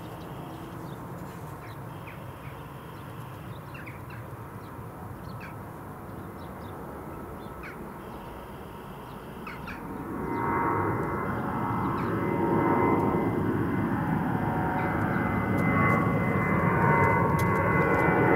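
Airbus A319's IAE V2500 turbofan engines at climb power just after takeoff: a steady distant rumble that swells about ten seconds in into loud jet noise with a high whine as the airliner climbs toward and over the listener.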